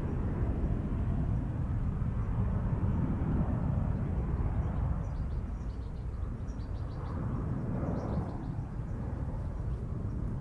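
GE CF34-8E turbofans of an Embraer 170 at takeoff power, heard as a steady low rumble.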